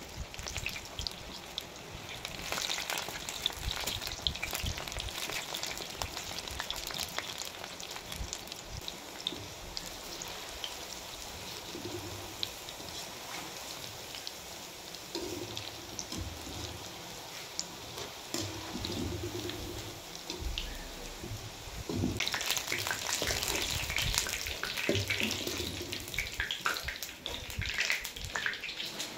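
Corn pakoras deep-frying in hot oil in a kadhai: a steady dense sizzle and crackle of popping oil. It gets louder about two-thirds of the way through, as a wire strainer stirs and lifts the pakoras.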